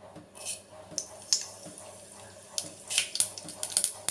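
Mustard seeds dropped into hot oil in a clay pot, sizzling with scattered small crackles that come thicker and louder from about halfway on as the seeds begin to pop.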